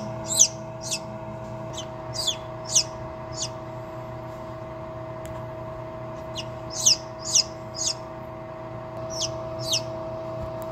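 Chicken chicks peeping in an incubator: about a dozen short, high chirps that each fall in pitch, in runs of three or four with a pause of a couple of seconds midway. A steady hum from the incubator runs underneath.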